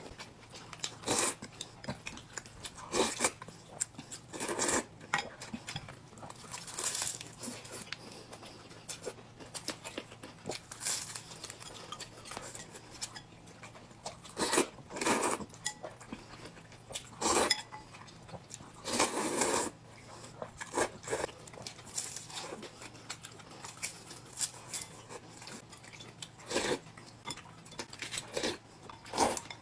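Close-up eating sounds: repeated short, noisy slurps of noodles and broth, with utensils clinking against glass bowls and plates.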